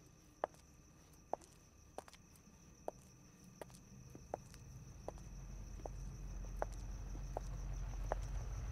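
A woman's footsteps on pavement, a sharp step about every three-quarters of a second, over a steady high cricket trill. From about five seconds in, a car engine's low rumble comes in and grows steadily louder.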